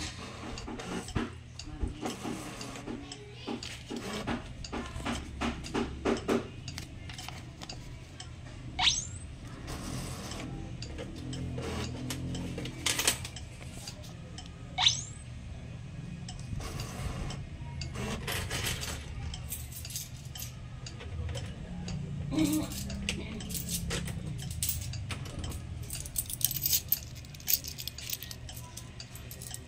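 A vending machine's bill acceptor and coin slot taking payment: a run of quick clicks as a banknote is drawn in, then coins clinking as they drop through the coin acceptor. Two short rising electronic chirps come about nine and fifteen seconds in, over a steady low hum from the machine.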